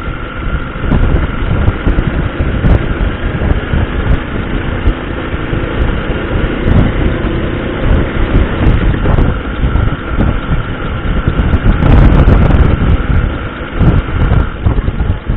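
Honda Super Cub 50's small four-stroke single running while the bike is ridden, with heavy wind buffeting on the microphone. A thin steady high tone comes and goes twice over it.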